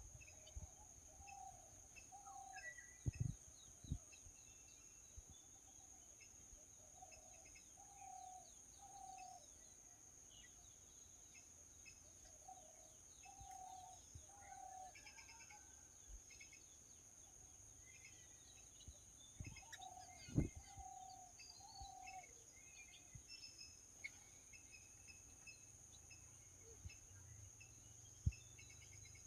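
Birds calling: short, low, falling notes in groups of two or three, repeated every few seconds, among many faint high chirps, over a steady high-pitched whine. A few dull thumps stand out, the loudest about twenty seconds in.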